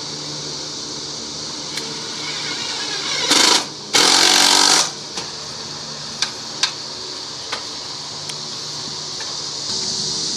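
An aerosol can of white lacquer sprays in two short hissing bursts, the second about a second long, followed by a few light clicks. A steady machine hum runs underneath.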